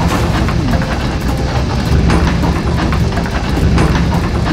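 Cartoon dump-truck engine sound effect: a steady low rumble with scattered knocks, heard while the truck tips out its load.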